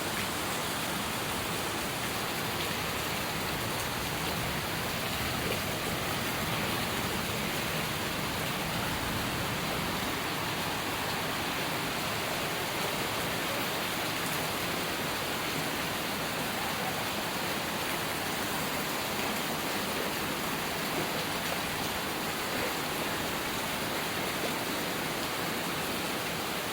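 Heavy rain pouring down, a steady even hiss without a break.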